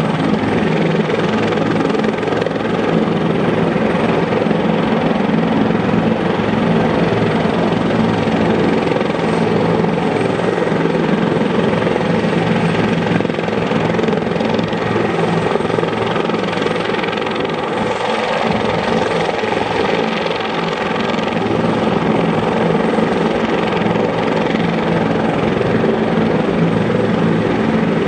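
Bell 412HP helicopter running on the ground, its twin-turbine engine and four-blade main rotor making a steady whine with several held tones.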